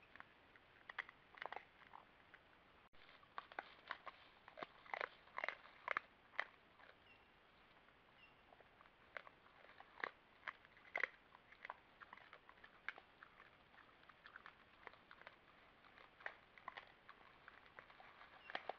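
Collared peccaries feeding at a corn bait: irregular sharp crunches as they chew the dry kernels, in quick clusters and scattered singles.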